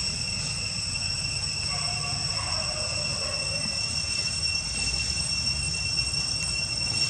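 Steady, unbroken high-pitched insect drone, as from cicadas, over a low outdoor rumble.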